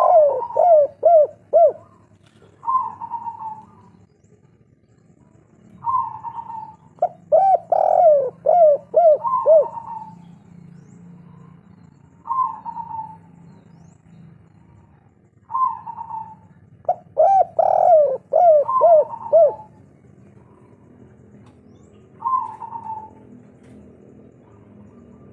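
Spotted dove (tekukur, derkuku) of the local 'kuk 3' type cooing. It repeats a phrase of a quick run of four or five short, falling coos, with single coos in between, a new phrase starting every few seconds.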